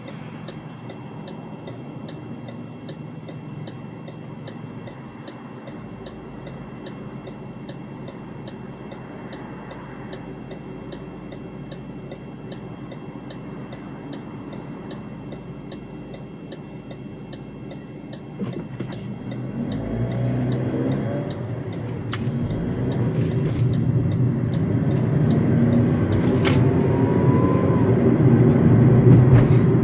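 Car cabin of an MG ZS: the turn indicator ticks steadily while the car sits quiet. A little over halfway through, the ticking stops and engine and tyre noise build as the car pulls away and accelerates, the engine note rising twice.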